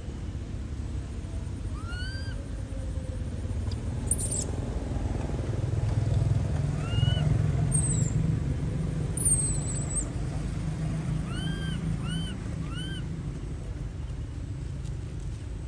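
Low rumble of a motor vehicle going by, swelling in the middle. Short rising-and-falling chirps come and go over it, three in quick succession near the end.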